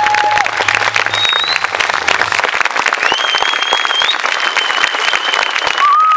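Audience and dancers applauding, dense steady clapping, with a few long high tones over it.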